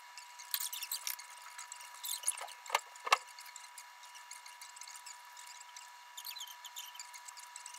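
Faint rustling and rubbing of bodies and clothing shifting on quilted floor mats during yoga stretches, with two soft knocks close together about three seconds in. A steady thin high tone hums underneath.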